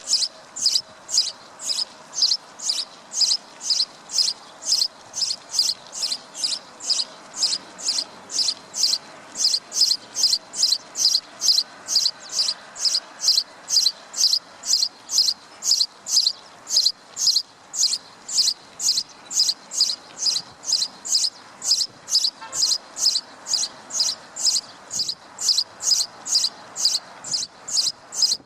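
High, short chirps repeated evenly about twice a second, a steady rhythmic animal call.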